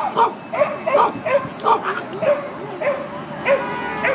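A small dog barking over and over, about two barks a second.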